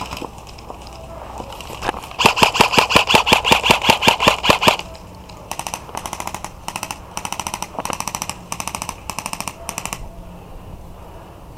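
Airsoft electric rifles firing full-auto bursts, each shot a sharp rapid click. A loud burst about two seconds in runs for roughly two and a half seconds, and several shorter, quieter bursts follow.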